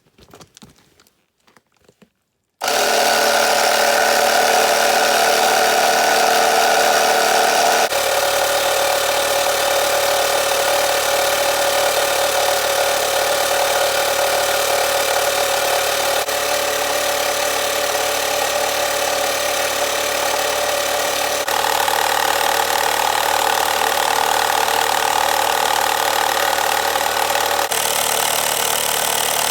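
Air compressor running steadily to inflate a car tire that leaks at the bead: a loud, even motor hum that starts suddenly a couple of seconds in and shifts tone abruptly a few times.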